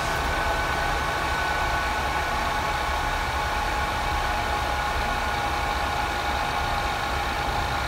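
Added cooling fan inside a Power Mac G4 Cube, driven by a CNC autonomous fan controller, running with a steady whir and hum. The controller is ramping the fan down as its temperature sensor cools after being heated.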